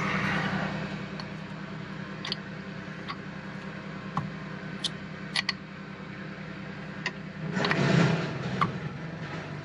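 A lawn mower engine runs steadily in the background. Over it come scattered sharp metallic clicks from a spark plug spanner working loose an outboard motor's spark plugs, and a louder spell of tool handling about eight seconds in.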